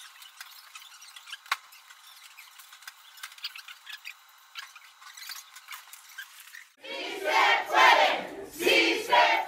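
Faint, thin rustling and light clicks, then about seven seconds in a group of people starts cheering and shouting in loud bursts.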